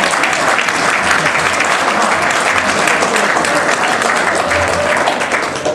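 A room full of people applauding, steady and loud, with some voices mixed in.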